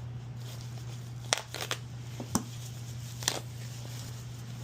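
Handling of a plastic shower head and its packaging: about half a dozen short clicks and light taps, scattered across a couple of seconds, over a steady low hum.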